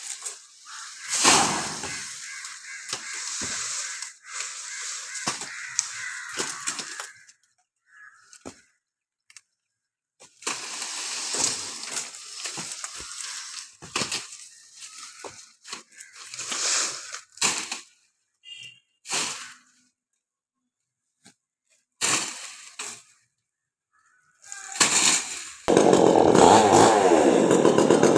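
Short stretches of crackling noise with sharp knocks and cracks, broken by abrupt dead-silent gaps. Near the end a chainsaw starts running loud, its engine pitch rising and falling.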